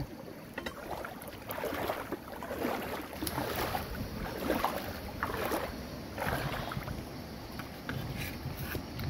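Irregular rustling and scraping as fresh leaves are pushed into a clay pot of snails and the pot is handled, several soft strokes a second.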